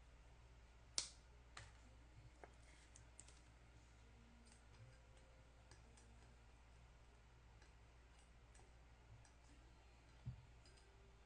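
Quiet clicks and ticks of trading cards being handled on a table, with a sharp click about a second in and a soft low thump near the end, over a faint steady hum.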